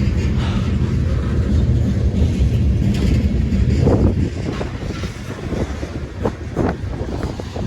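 Long freight train rolling slowly past: a heavy steady rumble of wheels on rail, easing a little about halfway through, with scattered short clanks and clatters from the passing cars.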